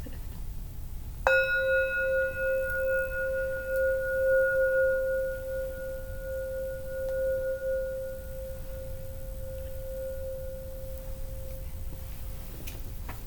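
A singing bowl struck once about a second in, ringing out with one wavering tone and a few higher overtones that die away first, fading over about ten seconds. The ring marks the opening of the session.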